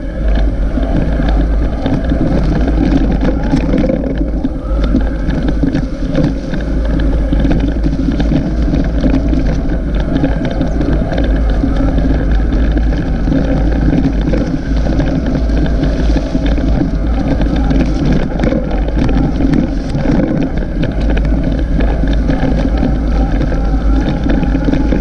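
Wind buffeting the microphone with a steady low rumble and rattling road noise, as from a camera riding along on a bicycle over an unpaved track.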